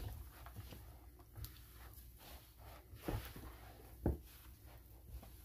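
Hands kneading and pressing bread dough in a bowl: irregular soft thumps and rubbing, with two louder thumps about three and four seconds in.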